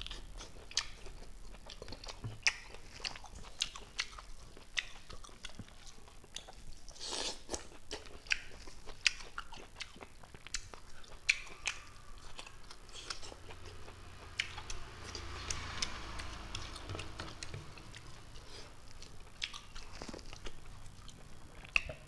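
Close-miked mouth sounds of a person eating boiled leafy greens by hand: chewing with many short, wet clicks and smacks of the lips and tongue.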